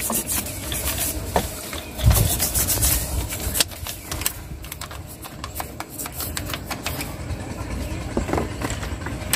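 A hand tool scraping and rasping on rusty metal in quick, uneven strokes, cleaning rust out of a machine's crevices, with a heavier low rumble about two seconds in.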